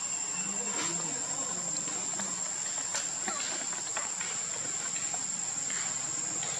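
Insects chirring in one steady, high-pitched unbroken tone, with a couple of faint clicks.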